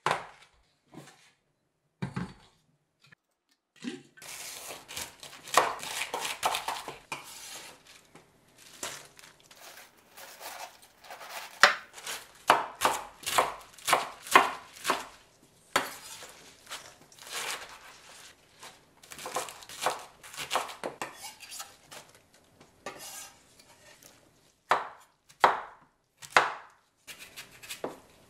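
Kitchen knife chopping napa cabbage on a wooden cutting board, in quick runs of strokes with short pauses between them. A few separate knocks come near the end.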